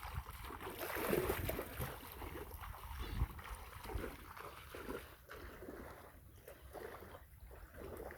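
River water sloshing and splashing irregularly, louder in the first few seconds and fading toward the end.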